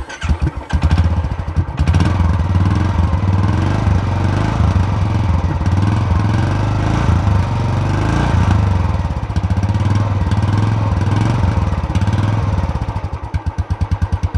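Royal Enfield Classic 350's single-cylinder engine heard at the exhaust, running loud with some rises in revs, then settling to a slower, separate thumping near the end.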